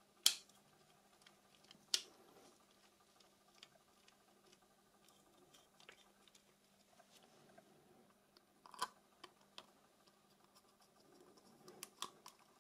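Sparse small clicks and taps of Nokia 6300 phone parts being handled during reassembly, with sharp clicks about a third of a second in, at about two seconds, and near nine seconds, and a few softer ones near the end.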